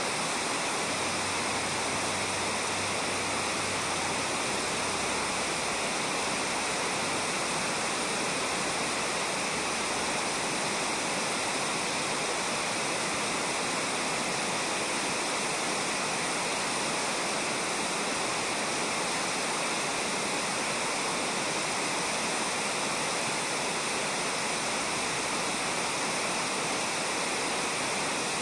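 Shallow river current running over a gravel bed, a steady, unbroken rush of water.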